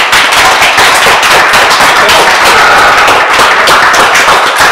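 Audience applauding: loud, dense clapping.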